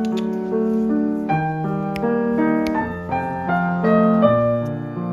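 Background music: a gentle piano melody over held chords.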